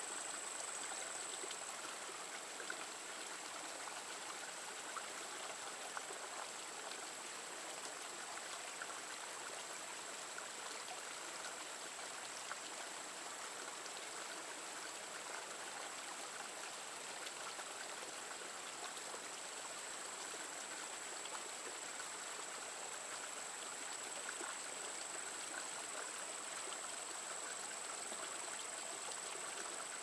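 Small mountain creek spilling over mossy rocks in a little cascade: a steady, even rush and trickle of running water. A thin, steady high-pitched tone sits above it.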